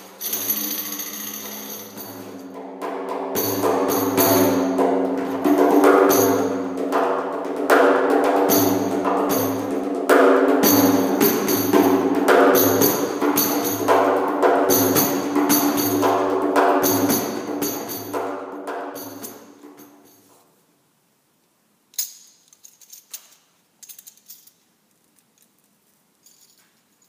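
Frame drum played with the hands in a steady rhythm, its deep tone ringing under the strokes, with a clip-on metal jingle rattling along with each stroke; the playing fades out about 20 s in. Near the end, a few small clicks and rattles as a jingle clip is fitted onto a drum's frame.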